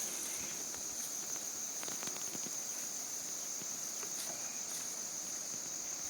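Crickets trilling steadily at a high pitch, with a few faint clicks.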